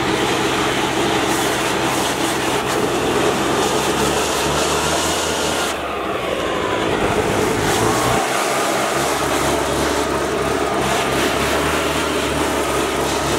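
Leaf blower running, blasting air into an open desktop computer case to blow out the dust. The motor's speed dips briefly about six seconds in, then picks up again.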